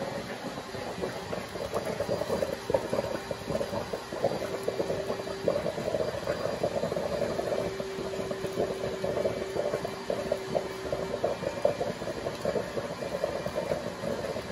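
Car engine idling with a steady, dense rattle, the cooling system open with a coolant funnel on the reservoir. A faint steady whine comes and goes through the middle.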